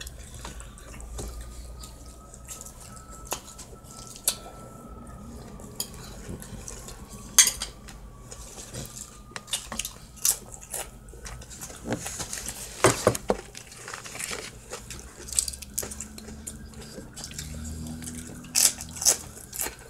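Eating utensils clicking and clinking against a bowl and plate, with scattered sharp clicks a few seconds apart and softer handling sounds in between.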